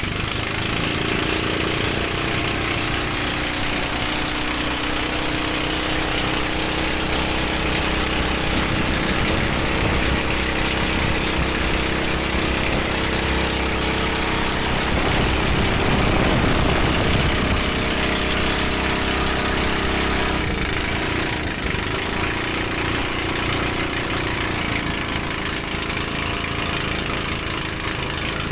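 Engine of a motorized bangka outrigger boat running steadily under way, over a constant rush of wind and water. The sound swells briefly about halfway through.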